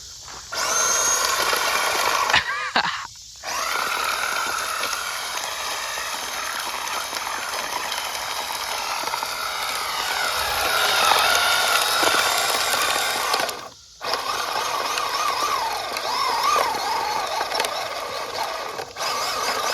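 1/16 Traxxas Slash 4x4 RC truck's electric motor whining at high throttle with wavering pitch, its tires spinning on loose dirt and gravel. It is straining to drag a second RC car and barely making headway. The throttle is let off briefly a few times: about three seconds in, around fourteen seconds and near the end.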